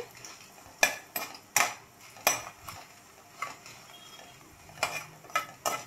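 Steel spoon stirring dried red chillies and coriander seeds in hot oil in a pan, clinking against the metal in about ten sharp, irregular knocks, over a faint sizzle of the spices frying.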